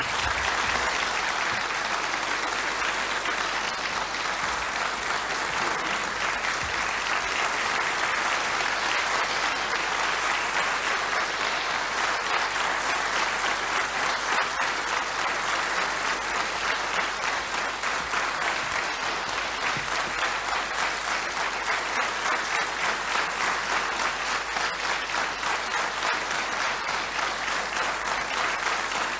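Audience applauding steadily, a dense even clapping that starts abruptly and keeps up without letting off.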